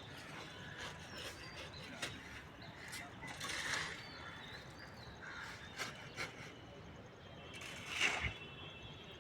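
Scattered clinks and knocks of concrete work, with two longer scraping sounds about three and a half and eight seconds in.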